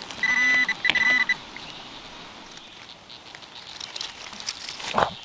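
Fisher F19 metal detector giving two short high-pitched beeps, one after the other in the first second and a half, the first with a low tone under it. A brief sharp chirp follows near the end.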